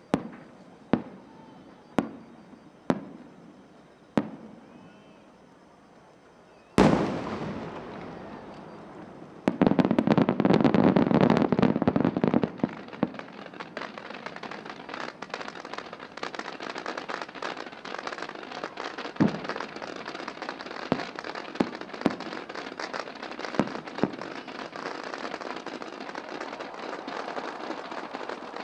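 Aerial fireworks: five sharp reports about a second apart, then a much bigger boom about seven seconds in that rolls away slowly. A few seconds later a dense crackling starts, loud at first, then lighter, with scattered pops to the end.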